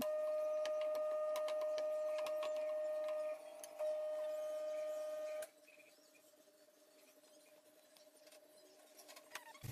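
A steady, pure-sounding high hum with short clicks of a wooden spoon stirring in a frying pan; about five and a half seconds in, the hum stops and only faint quiet noise remains.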